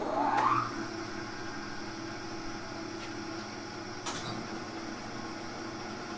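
LeBlond Regal 26-inch swing engine lathe started up with its big 20-inch chuck just mounted: a rising whine as the spindle comes up to speed in the first second, then a steady running hum.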